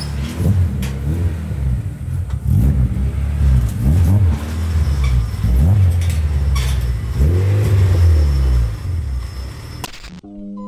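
Honda K20 four-cylinder engine of a Civic track car revved in repeated short blips, each rising and falling back, as the car creeps up the ramps onto a car trailer. The engine cuts off suddenly near the end and music takes over.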